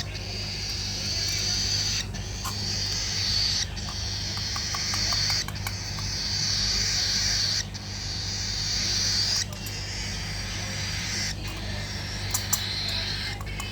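Baby cockatiel chicks giving harsh, hissing food-begging calls during hand-feeding, in runs of about two seconds, each cut off abruptly before the next. A steady low hum lies underneath.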